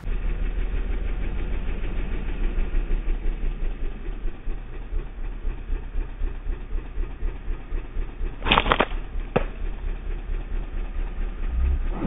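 Engine running steadily at idle, a low pulsing rumble, with a short loud burst of noise about eight and a half seconds in and a sharp click a second later.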